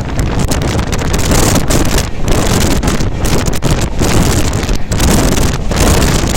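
Heavy wind buffeting the microphone over the steady running noise of an express train at speed, about 110 km/h.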